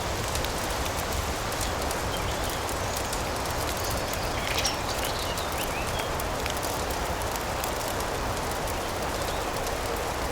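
Cozy ambience mix of rain and fireplace crackle: a steady rush with fine crackles scattered throughout, and a short chirp about four and a half seconds in.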